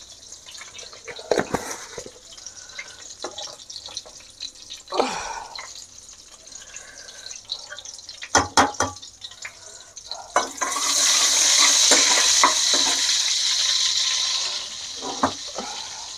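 Hot oil sizzling faintly in a stainless-steel kadhai with hing and a bay leaf in it, with a few clinks and knocks. About ten seconds in, a loud steady rushing noise starts suddenly, runs for about four seconds and stops.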